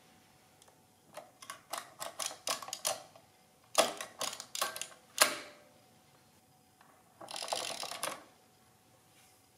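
Addo Model 2 mechanical adding machine worked by its main lever: a run of quick light clicks, then several louder clacks and a short rasping slide near the end. The clicks are the sound of the carries rippling from right to left through a register of nines.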